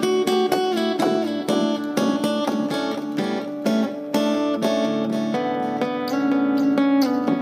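Acoustic guitar played through a delay effect, a quick run of picked and strummed notes whose echoes pile up into layered, ringing chords.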